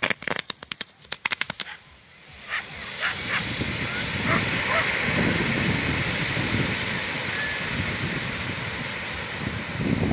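Fireworks going off: about a dozen sharp bangs in quick succession over the first two seconds. A steady rushing noise then builds and holds.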